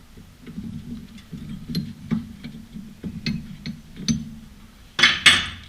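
Front brake caliper of a Honda Accord being worked back and forth by hand on its mounting, giving light irregular metallic clicks and knocks, then a louder scrape about five seconds in. It moves easily, a sign that it is free and not seized.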